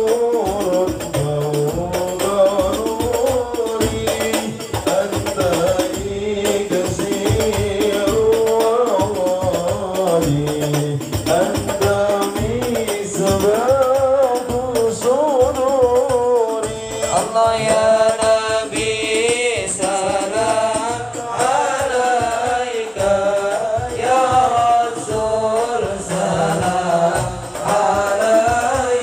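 Congregation singing shalawat, Islamic devotional songs of praise to the Prophet, together to a steady beat of hand-held frame drums.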